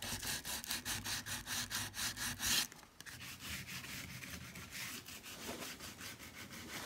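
Hand sanding of stripped, dried wood with 120-grit sandpaper: quick back-and-forth rubbing strokes, several a second, louder for the first two and a half seconds and softer after that.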